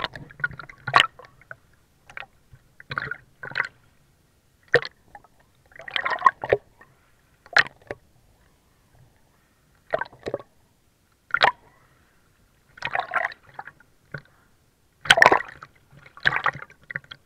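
Seawater sloshing and gurgling around a waterproof camera as it goes under and breaks the surface while swimming: irregular short splashy bursts with quiet gaps between.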